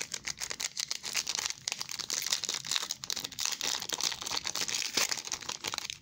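Foil wrapper of a trading-card pack crinkling and crackling continuously as it is handled and torn open.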